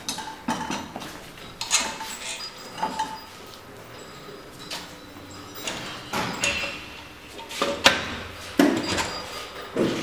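Irregular metal clanks and knocks, some with a short ring, as steel parts of a hydraulic butt fusion welding machine are handled; the facing tool is set down into the machine frame, with the loudest knocks in the last few seconds.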